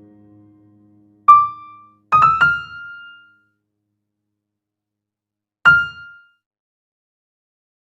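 Software keyboard instrument in FL Studio Mobile playing a few short single notes. A chord dies away first, then one note sounds about a second in, three quick notes follow a second later, and one more note comes near the end, each ringing briefly with silence between.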